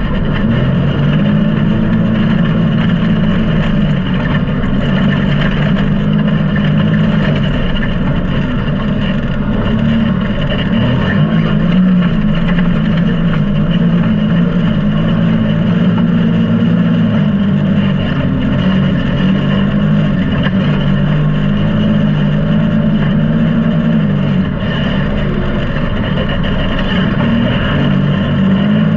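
Can-Am Maverick X3's turbocharged three-cylinder engine running steadily under load while driving across sand, its note rising and falling a little and dipping briefly near the end.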